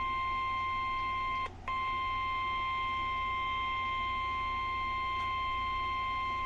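Emergency alert warning tone: a single steady beep of about 1 kHz, the Weather Radio warning alarm ahead of a National Weather Service severe thunderstorm warning. It cuts out for a moment about a second and a half in, then resumes.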